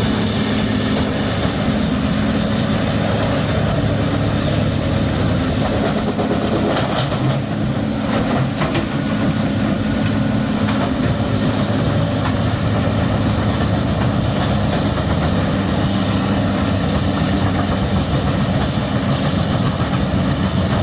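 Bandit Beast 4680 horizontal grinder running, the steady heavy drone of its Caterpillar C27 diesel engine and cutter mill grinding wood, with a few sharp knocks and cracks about seven to nine seconds in.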